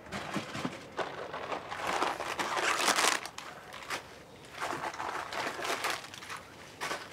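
Rustling, crinkling noise with scattered clicks, swelling loudest about three seconds in and again around five seconds.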